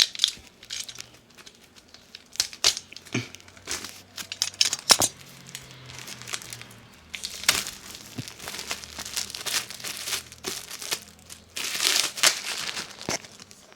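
Plastic wrapping being torn and peeled off a manga volume by hand, crinkling and crackling in irregular fits, busiest from about halfway through and again near the end.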